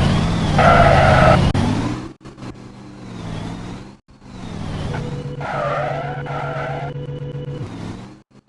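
Vehicle engine sound, its pitch dipping and rising again several times, with short abrupt cut-outs between passages.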